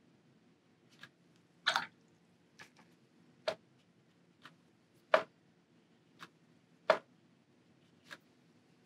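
Watercolor brush tapping and dabbing on paper: short, irregular taps about once a second, over a faint low hum.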